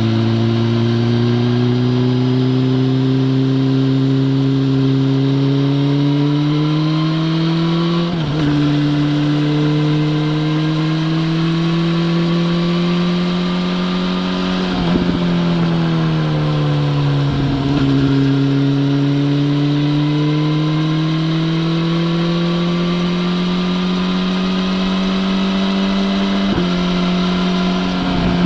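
BMW S1000RR inline-four engine pulling on the road. Its pitch climbs slowly and drops sharply at gear changes about eight seconds in and again around fifteen to eighteen seconds. The pitch jumps up suddenly near the end.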